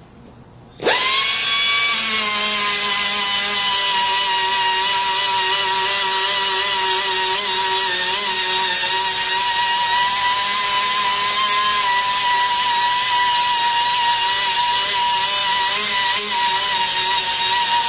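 Pneumatic right-angle sander with a small abrasive disc starting up about a second in. Its whine rises fast, dips a little, then holds a steady high pitch with air hiss as the disc grinds sheet metal.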